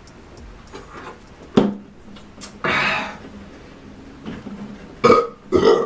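A man's mouth and throat sounds at the end of chugging sparkling water. A sharp knock comes about a second and a half in, then a breathy exhale of about half a second, and near the end two short voiced burps.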